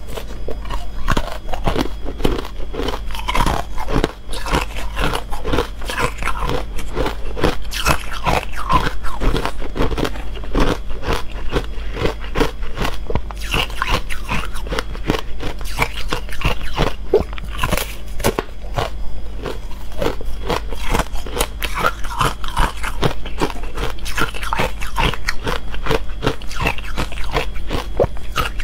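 Thin slabs of ice coated in matcha powder being bitten and chewed: dense, continuous crunching and cracking, over a steady low hum.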